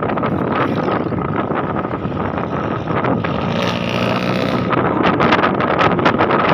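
Wind buffeting the microphone of a moving motorbike, over its running engine and the road noise of street traffic. A louder, higher hiss rises for about a second around the middle.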